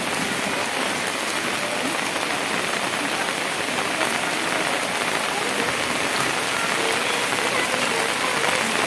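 Heavy rain pouring down, a dense, steady hiss of rain hitting surfaces.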